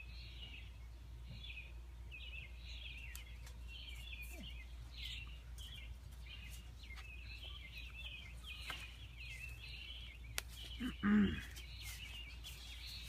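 Many small birds chirping and chattering steadily, with one brief, louder, lower sound about eleven seconds in.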